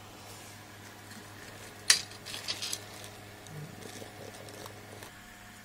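Small metal screws clicking and clinking against a computer case as they are handled and started by hand into the power supply's mounting holes: one sharp click about two seconds in, then a quick run of lighter clinks.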